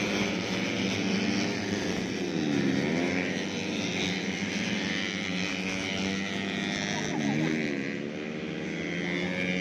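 Four-stroke underbone race motorcycles running hard, the engine pitch dropping and climbing again twice, as when they ease off for a corner and accelerate out.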